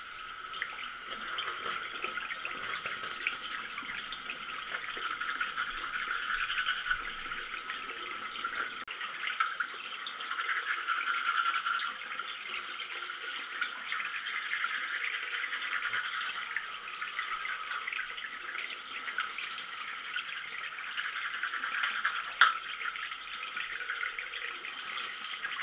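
Teeth being brushed with a toothbrush over a steady hiss of running water.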